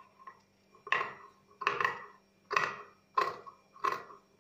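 Steel tailor's scissors snipping through cloth, about five sharp snips under a second apart, trimming the fabric around a stitched neckline.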